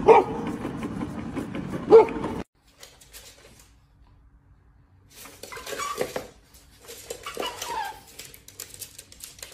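A dog barks twice, about two seconds apart, over a steady background hiss. After a short silence come fainter yelps and scuffles.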